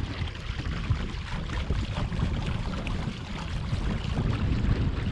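Wind noise on the microphone with water hiss along the hull of a kayak moving at about 4.5 mph, a steady rumble without any clear motor tone.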